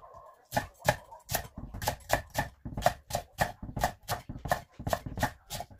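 Knife chopping on a cutting board in quick, steady strokes, about three a second.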